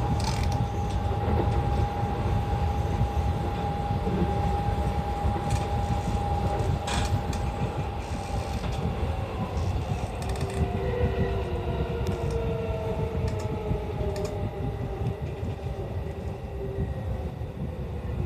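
E235-1000 series electric train heard from the driver's cab, running on the rails and slowing into a station. A steady motor whine begins to fall in pitch about eight seconds in, with several tones gliding down together as the train brakes. A few sharp clicks sound over the running noise.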